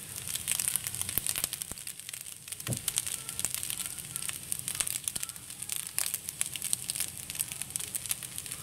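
Egg fried rice crackling and popping in a hot wok: a dense, irregular run of small crackles as it fries.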